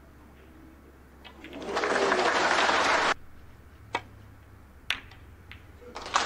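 Audience applauding for about a second and a half, cut off abruptly. Then three sharp clicks of snooker balls being struck and colliding, and the applause starts again near the end.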